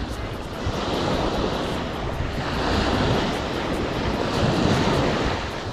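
Sea surf breaking on the shore in rough conditions, swelling and easing in surges, with wind rumbling on the microphone.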